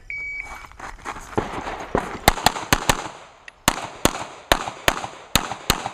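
Shot timer's electronic start beep, then a rapid string of pistol shots beginning about a second and a half later: sharp, loud cracks coming several a second in quick pairs and runs.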